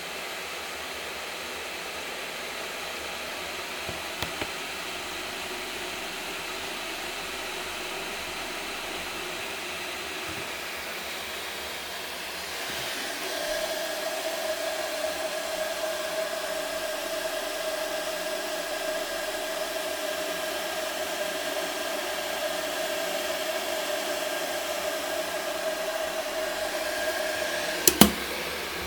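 Tefal Thermovision KI410D30 electric kettle heating water: a steady rushing hiss that gets louder about halfway through and takes on a steady tone, with a sharp click near the end.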